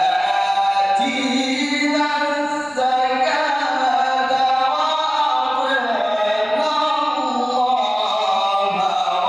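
A man reciting the Quran in melodic tajweed style, holding long notes that glide up and down in pitch, with one short break about three seconds in.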